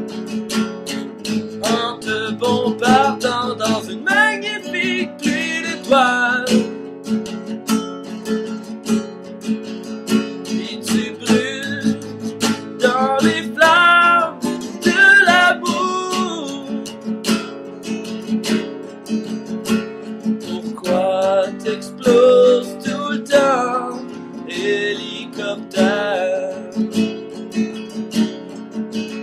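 Acoustic guitar strumming chords, with a melody line on top in several phrases.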